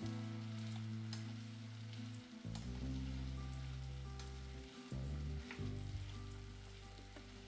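Food frying in oil in a pan: a steady sizzle with small crackles, over soft background music with held low notes.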